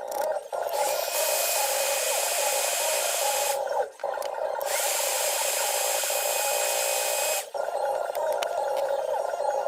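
A small electric workshop tool running in stretches of a few seconds. Each stretch starts with a short rising whine and then holds steady, with brief stops about four and seven and a half seconds in.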